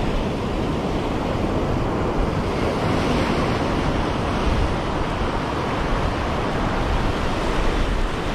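Small ocean waves breaking and washing through shallow water in a steady rush, with wind buffeting the microphone.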